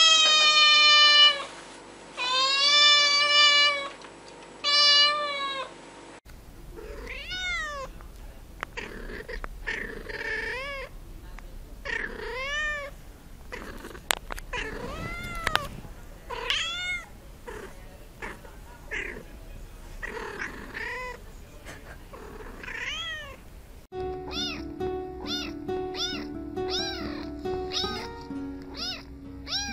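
A black-and-white kitten gives three loud, long meows, then another cat meows again and again in short, quieter calls. Near the end a tabby kitten meows rapidly over background music.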